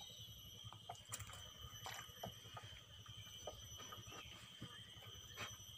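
Faint ambience near silence: a steady low rumble, a thin steady high tone, and scattered soft clicks and knocks.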